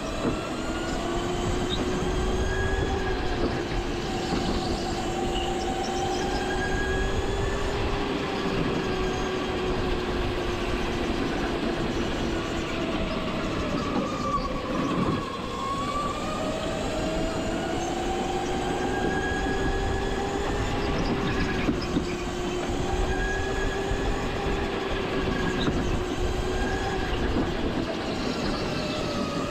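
Go-kart engine running at speed, its pitch holding high, dropping about halfway through as the kart slows, then climbing again, with a steady rushing noise beneath.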